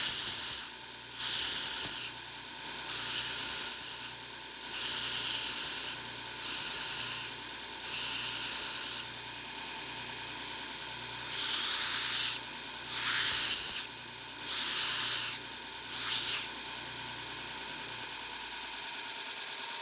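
A small high-speed rotary power tool running with a steady high-pitched whine while it sands, pressed against a workpiece in about ten short strokes, each a rush of abrasive hiss a second or so apart, with a pause of a couple of seconds midway.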